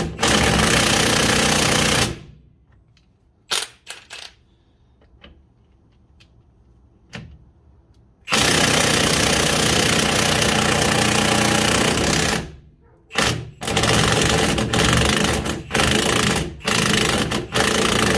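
Impact wrench hammering on a 19mm nut on a strut-to-hub bolt, trying to break it loose. It runs in bursts: one about 2 s long at the start, a few short blips, a long burst of about four seconds in the middle, then several shorter bursts near the end.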